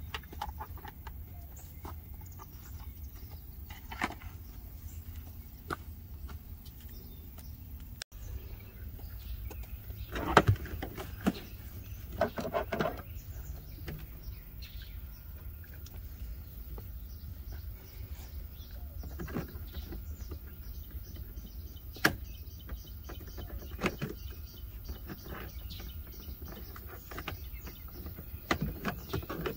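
Plastic interior trim of a Saturn Sky being handled and pried off at the door sill and door pillar: scattered clicks, knocks and rustles over a steady low rumble, with the loudest knock about ten seconds in.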